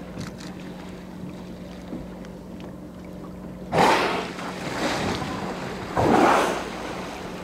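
Bigg's (transient) killer whales surfacing and exhaling: two loud, breathy blows, about four and six seconds in, over a steady low hum from the boat and the wash of water and wind.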